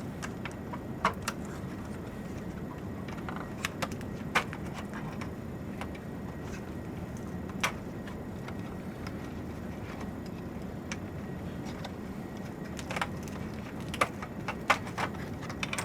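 Scattered light clicks and rattles of plastic cable connectors being unplugged from the back of a server drive backplane, over a steady low background hum.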